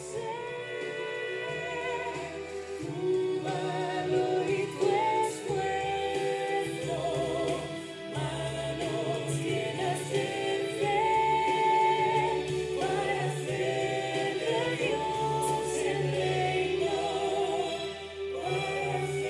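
Voices singing a devotional Christian hymn as a choir, with vibrato on the held notes, over a steady instrumental accompaniment.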